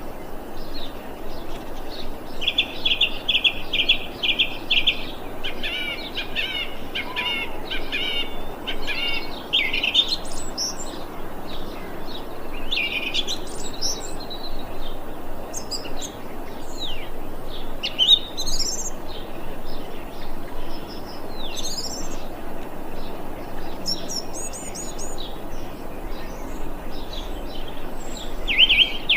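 A thrush singing: runs of quick repeated notes, then varied whistled phrases with rising slurs, and quick repeated notes again near the end, over a steady background hiss.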